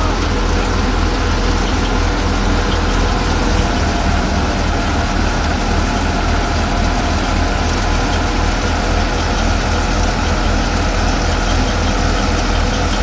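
Fiat 480 tractor's diesel engine running steadily, driving a threshing machine that is threshing pearl millet, with the thresher's continuous mechanical din over the engine's fast low pulsing.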